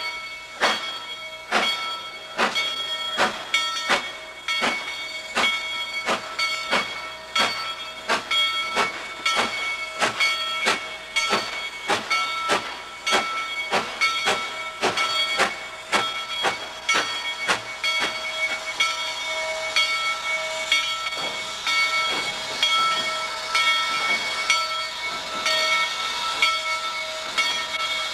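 Steam locomotive working at low speed, its exhaust beating in an even rhythm of about one and a half chuffs a second with a hiss of steam. Steady high ringing tones run under the beats and grow stronger in the last third.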